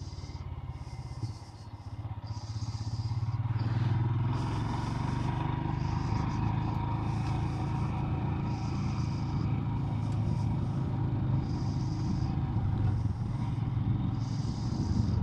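Motorcycle engine pulling away, climbing in pitch from about a second in until about four seconds in, then running at a steady cruise. A high hiss pulses on and off about every second and a half.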